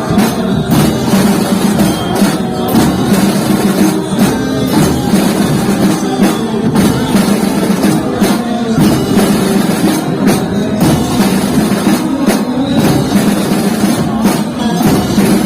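Muharram mourning music led by drums beating steadily, in a pattern that repeats about every two seconds.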